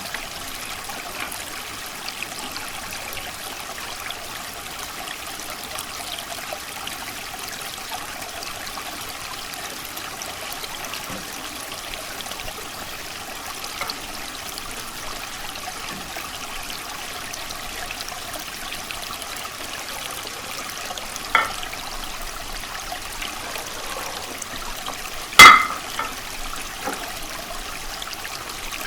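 Creek water running and trickling steadily. A small tap comes about three-quarters of the way through, and a single sharp, loud click near the end.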